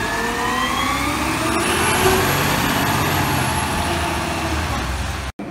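Automated side-loading garbage truck pulling away, its diesel engine rising in pitch as it accelerates, with a faint high whine above it. The sound breaks off abruptly near the end.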